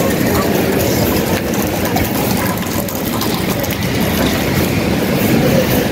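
Wind and rain buffeting a handheld microphone outdoors: a loud, steady rumble with a rushing hiss on top.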